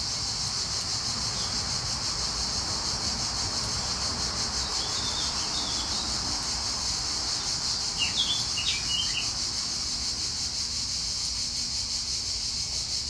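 Steady high chirring of insects, with a few short bird chirps about five seconds in and again around eight to nine seconds.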